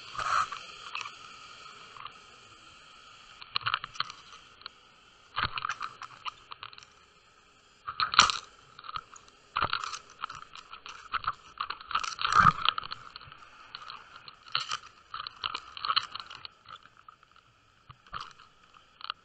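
Underwater camera rig dragging and bumping across a sandy sea bottom, with irregular crunching clicks and scrapes against the housing. The loudest knocks come about eight and twelve seconds in.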